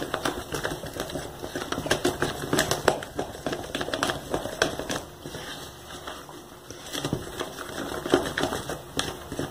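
Wooden spoon stirring a thick, creamy ice-cream base in a plastic tub, knocking and scraping against the tub's sides in quick, irregular clicks that ease off about five to seven seconds in.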